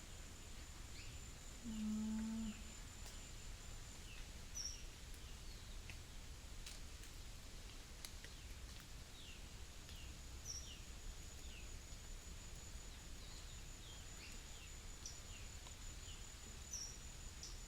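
Outdoor countryside ambience in which a cow lows once, a short low steady call about two seconds in. Many short, high, falling chirps are scattered throughout, over a thin, steady, high insect-like whine that stops a few seconds in and returns later.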